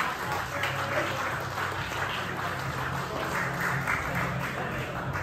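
Small audience clapping steadily, many hands at once.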